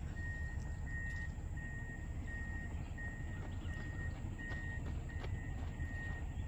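Outdoor ambience: a steady low rumble, with a faint high-pitched tone pulsing on and off about every two-thirds of a second.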